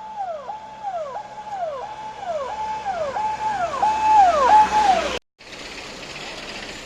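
An electronic siren giving a quick repeating wail, each cycle rising, holding and falling, about eight cycles in a row and growing louder before it cuts off suddenly about five seconds in. A steady background noise runs on after it.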